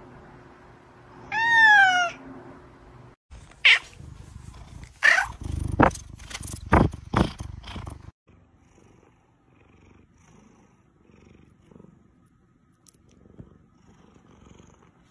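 Domestic cats vocalising. A black cat gives one falling meow. Then a tabby cat right at the microphone makes several short, loud calls over a low rumble (captioned "mum mum"), after which the sound is faint.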